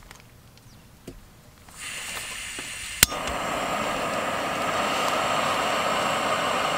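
APG personal canister gas stove being lit: gas starts hissing from the burner about two seconds in, a sharp click about a second later as the igniter sparks, then the lit burner hisses steadily and somewhat louder.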